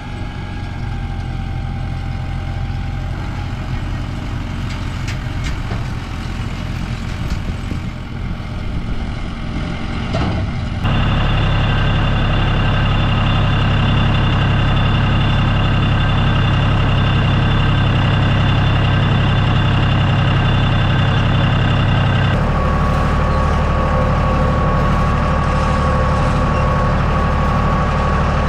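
Farm tractor engine running steadily while pulling a round baler through hay. About a third of the way in it steps up louder to a higher, steady note, and about two-thirds of the way in its note shifts again.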